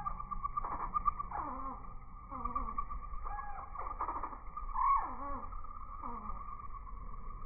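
Hummingbirds at a feeder, slowed down by slow-motion playback, so their sounds come out low and drawn out. Several bent, sliding calls, one of the loudest about five seconds in, sound over a steady pulsing hum.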